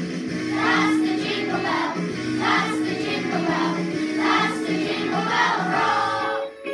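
Children's choir singing a Christmas carol with instrumental accompaniment; the singing stops about six seconds in, leaving a few instrumental notes.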